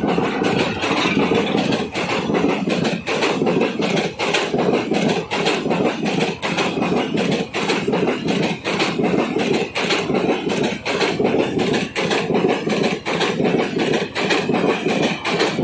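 Coaches of an express passenger train passing close by at speed. The wheels make a steady loud rumble and rush on the rails, with a quick run of clicks from the wheels and bogies.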